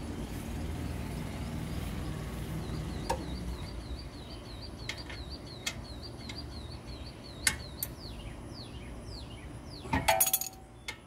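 Metal hand tools clinking against a car's front brake caliper and steering knuckle: a few separate clinks, then a quick cluster of louder clanks with a short ring about ten seconds in. A small bird chirps in an even repeating pattern in the background, then gives several falling calls.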